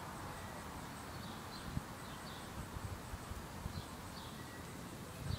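Outdoor yard ambience: faint bird chirps every second or so over a steady hiss, with a few low bumps on the microphone, the last cluster near the end.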